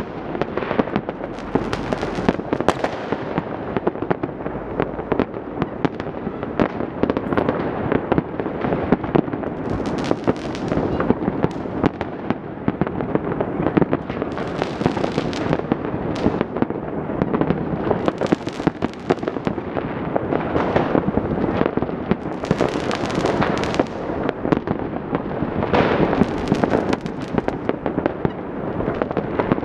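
Many fireworks and firecrackers going off at once: an unbroken stream of overlapping bangs and crackles.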